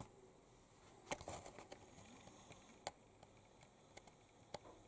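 Near silence: quiet room tone with a few faint, short clicks, a small cluster of them about a second in and single ones later.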